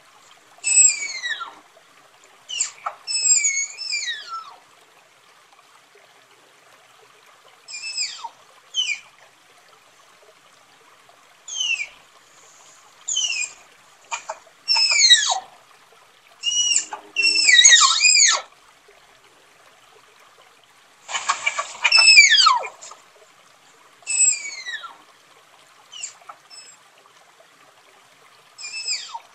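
Tapir giving a series of high-pitched, whistle-like calls, each sliding down in pitch. They come singly or in quick clusters, with quiet gaps of a few seconds between them.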